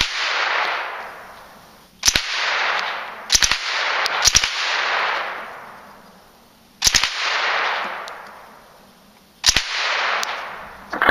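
Suppressed 9mm Uzi submachine gun fired in full auto, in about six short bursts of two or three rounds a few seconds apart. Each burst is followed by a long echo that fades over a second or two.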